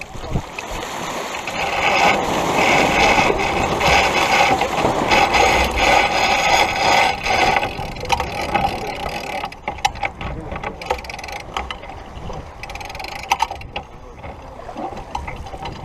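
Sailboat sheet winch being cranked, its pawls clicking rapidly for several seconds. In the second half it gives way to scattered single clicks and knocks.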